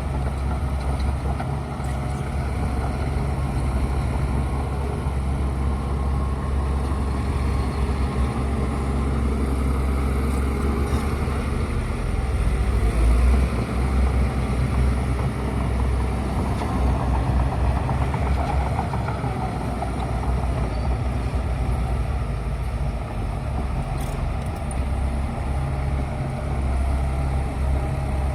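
Bulldozer's heavy diesel engine running steadily under load, a deep continuous drone with the grind and rumble of the machine working.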